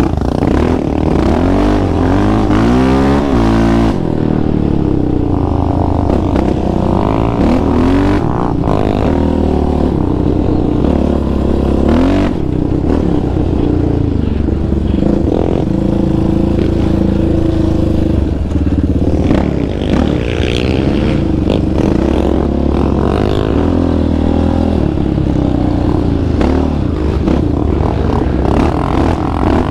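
Single-cylinder four-stroke sport quad engine under hard throttle, its pitch climbing through the gears and falling off again and again, with stretches of steadier running.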